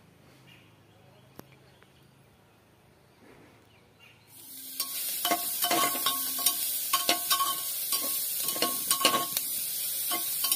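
Faint background for about four seconds, then sliced onions sizzling loudly in hot butter in a metal pot as they are stirred, the spoon clicking and scraping against the pot many times.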